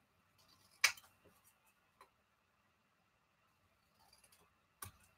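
Small scissors snipping paper: two sharp snips, one about a second in and one near the end, with faint paper rustling and small ticks between.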